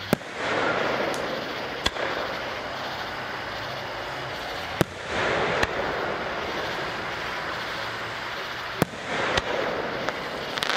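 Aerial fireworks shells bursting overhead: four sharp bangs a few seconds apart, each of the first, second and fourth followed by a second or more of spread-out noise, with a few smaller pops near the end.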